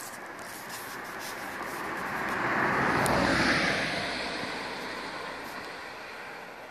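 A vehicle passing by: a noisy rush with a faint low rumble that swells to a peak about three seconds in and then fades away.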